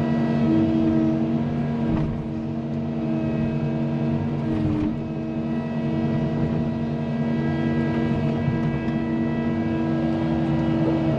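Cat 310 mini excavator's diesel engine running steadily under load while the machine pushes against a tree, with a steady hydraulic whine that shifts slightly in pitch a few times.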